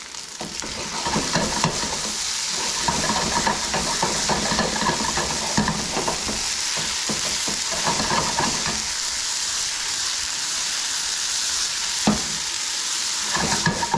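Spaetzle frying in butter and oil in a skillet: a steady sizzle that swells over the first second or two, with the scrape and clatter of a utensil stirring them around the pan.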